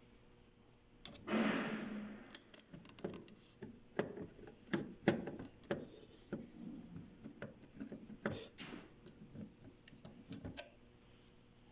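Plastic parts of a Sharp AR-5520 photocopier being handled by hand during disassembly. There is a short scrape about a second in, then irregular clicks and knocks until near the end.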